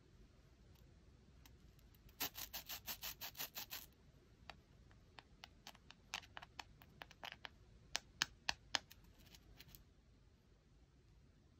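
The sugary crumb coating of giant strawberry marshmallows scratching and rasping as they are rubbed and squeezed together between fingers. A fast run of scratches lasts under two seconds, followed by scattered single scrapes and ticks.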